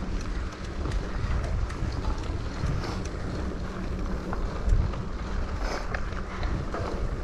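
Wind buffeting the microphone: a steady low rumble with faint scattered clicks.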